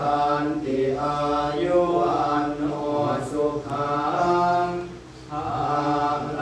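Theravada Buddhist monks chanting Pali blessing verses together in a steady, held-pitch recitation, with a short breath pause about five seconds in before the chant resumes.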